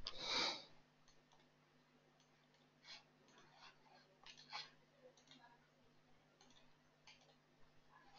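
Near silence: a faint steady low hum with a few soft, scattered computer-mouse clicks, after a brief rush of noise right at the start.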